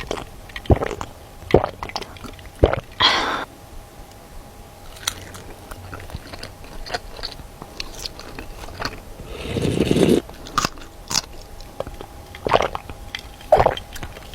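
Close-miked biting and chewing of fried pempek mackerel fish cakes, the thin crispy skin giving short crisp crunches in irregular bursts, with a longer, noisier sound about ten seconds in.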